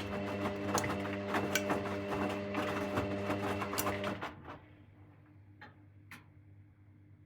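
Hoover washing machine drum turning during the main wash: a steady motor hum with frequent soft knocks from the tumbling load. The motor stops abruptly about four seconds in, the usual pause between drum rotations, leaving quiet with two faint clicks.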